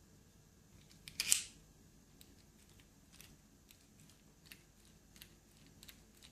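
Small metal parts of a BMW door lock cylinder clicking as they are handled and worked, with one sharp snap about a second in and faint scattered clicks after it.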